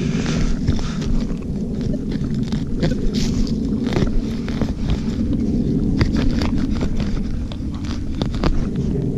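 Wind rumbling on the microphone, with scattered sharp clicks and scrapes of digging in soil to recover a metal-detector target.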